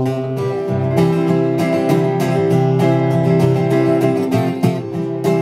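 Two acoustic guitars strumming chords together in a steady rhythm, an instrumental passage of a live acoustic song.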